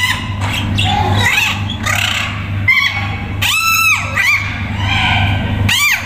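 An Amazon parrot calling: a string of short calls that arch up and down in pitch. The longest and loudest comes just past halfway, and another follows right at the end.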